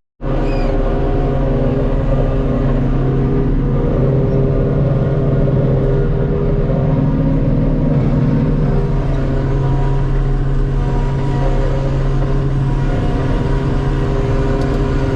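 Large diesel farm engine running steadily under load, its pitch shifting slightly about halfway through.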